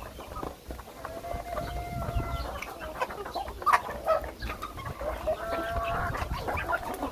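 Chickens clucking, with two drawn-out calls, one about a second in and another near the end.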